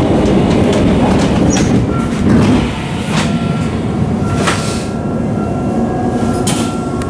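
Tokyu 3000 series electric train running into a station stop, heard from inside the car: a steady rolling rumble with a few sharp clicks as the wheels cross rail joints, and a faint steady whine from about two seconds in.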